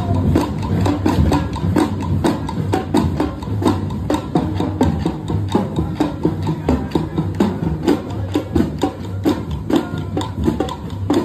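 Procession drum band playing quick, steady percussion beats.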